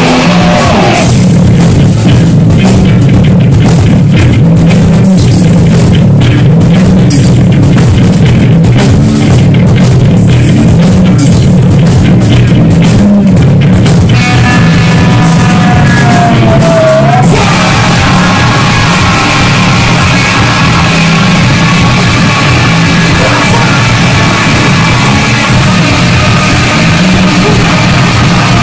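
A heavy metal band playing live and loud: electric guitar, bass guitar and drum kit. Busy drumming fills the first half. From about halfway, held, ringing guitar notes come to the fore over the bass, with a short bent note.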